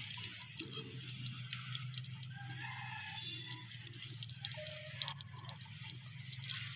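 Oil heating in an aluminium pot over a wood fire: faint scattered crackles and ticks over a steady low hum, with a few brief faint animal calls in the background.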